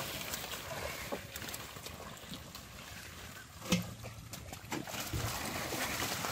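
Water hyacinth leaves rustling and shallow muddy water sloshing as hands search through the plants for fish, with small clicks throughout and one louder knock about halfway through.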